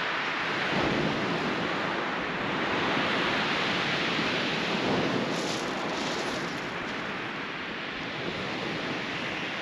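Sea surf washing on a shingle beach: a steady rushing hiss that swells and eases gently.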